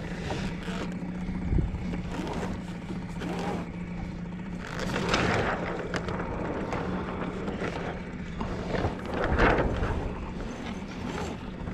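Steady hum of a small boat engine over water noise, with two louder rushes of noise about five and nine and a half seconds in.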